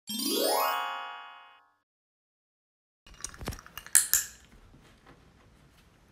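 A quick upward run of bright notes, an edited-in sound effect, sweeps up and fades over about a second and a half. After a pause come a few light taps and then a sharp double click about four seconds in, a handheld training clicker pressed and released as the toy poodle puppy puts its paw in the hand.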